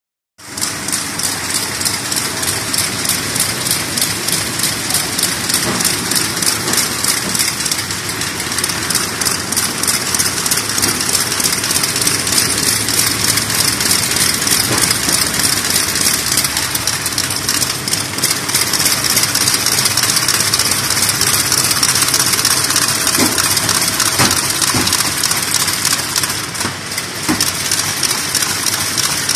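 KAMA Profold 74 folding and gluing machine running, its belts and rollers carrying paper blanks through: a steady mechanical din with a fast, even clicking.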